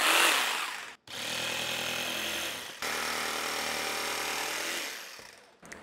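Ryobi cordless jigsaw running, its blade sawing through a half-inch PVC sheet to rough-cut a shape. The first second is hissier, then the saw runs steadily in two stretches, each broken off sharply, before fading out near the end.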